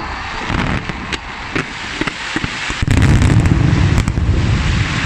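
Fireworks firing: a string of separate sharp reports as comets launch, then about three seconds in a louder, continuous barrage of many shots going off together.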